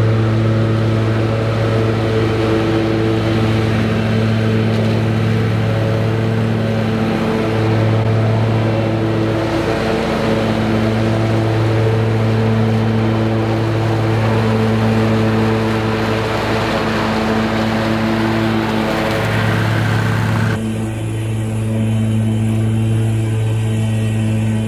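Toro Z-Master 6000 zero-turn mower's engine running steadily under load while its deck cuts tall grass and weeds. About 20 seconds in the sound changes abruptly to the mower heard from a microphone on the machine itself.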